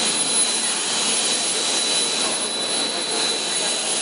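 Aluminum-plastic composite (PAP) pipe extrusion line running: a steady machine noise with a thin, steady high-pitched whine over it.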